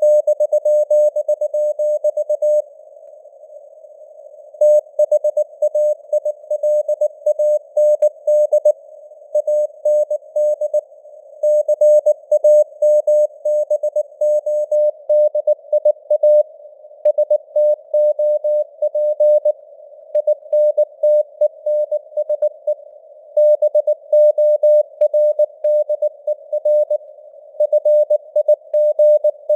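Morse code (CW) tone of about 600 Hz keyed at 19 words per minute, sending news text in dots and dashes over a narrow band of simulated radio hiss. The tone stops for about two seconds between words near the start.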